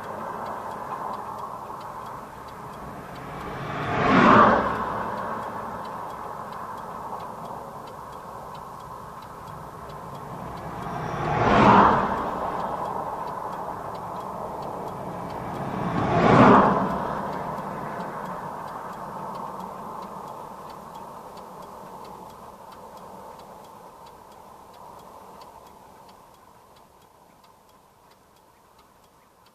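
Three vehicles passing by one after another, each swelling up and fading away within a second or two, over a steady background that slowly dies away.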